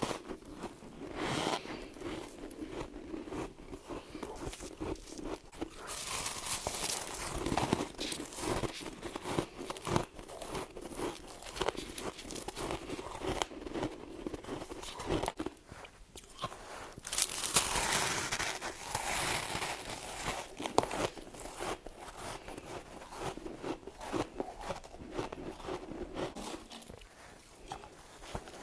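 A person biting into and chewing frost: a long run of crisp crunches and crackles, with louder bursts about six seconds in and again from about seventeen to nineteen seconds.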